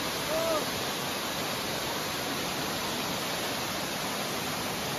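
Elephant Falls, a waterfall cascading over a rock face into a pool, giving a steady, even rush of falling water. A brief rising-and-falling tone sounds once, about half a second in.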